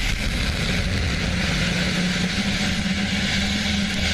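Falcon 9 first-stage Merlin engine on its landing burn, heard from the drone ship deck: a loud, steady roar with a low hum under it.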